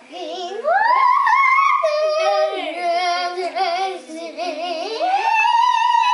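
Young girls singing, with a note sliding up and held about a second in, wavering notes in the middle, and another long held note near the end.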